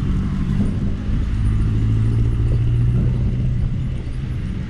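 Tazer Mini electric scooter riding through night traffic: steady road and wind rumble with a low hum that is strongest in the middle.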